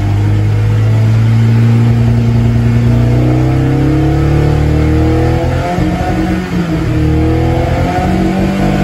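Toyota AE86's 4A-GE twin-cam inline-four breathing through a KMS original muffler, heard from inside the cabin while accelerating under load. The engine note climbs steadily as revs rise from about 3,000 to over 5,000 rpm, with a brief dip about six and a half seconds in.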